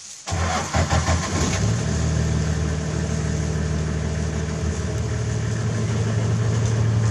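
Vehicle engine starting about a third of a second in, then running steadily.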